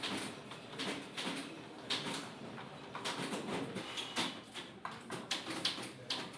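Manual typewriter being typed on: irregular sharp key strikes clacking, while a pigeon coos in the background.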